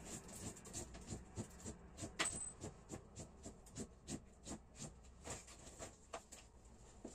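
Soft rustling and light taps, about three or four a second, from hands working over a fabric-covered sofa as its top is cleared and arranged.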